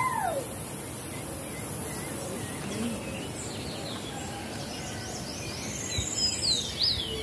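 Woodland ambience: a steady high-pitched insect drone with bird chirps, a quick run of them near the end.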